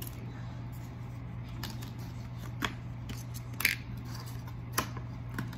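Takeout food packaging being handled: about four short crinkling clicks, the loudest a little past halfway, over a steady low hum.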